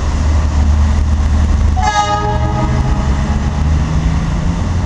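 DE 22000-class diesel-electric locomotive sounding its original-type horn in one blast of about a second, a little under two seconds in, as the train pulls away. A steady low rumble runs underneath.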